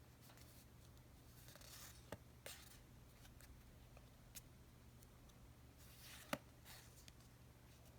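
Faint handling sounds of Pokémon packaging or cards: soft rustling with a few light clicks, the sharpest one about six seconds in, over a low steady hum.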